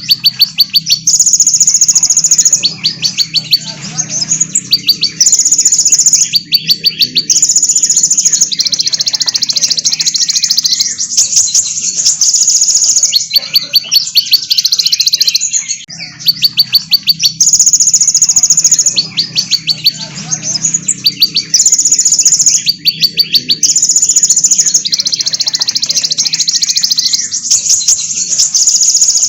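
Small songbirds singing a recorded bird-training track: dense runs of rapid, high-pitched chirps and trills, with the same sequence repeating about every 16 seconds like a loop. A faint low hum runs underneath.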